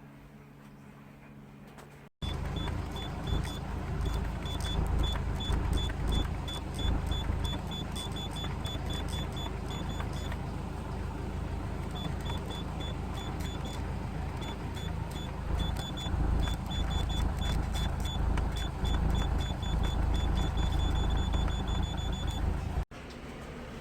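Car engine running, with a fast high electronic beeping over it that comes in runs, stops and starts again.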